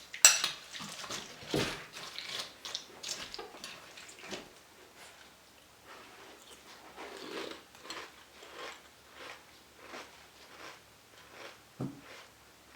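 A sharp clink of a spoon against a cereal bowl, then chewing of crunchy peanut butter Chex corn cereal: loud irregular crunches at first, settling into softer, steady chewing of about one and a half chews a second.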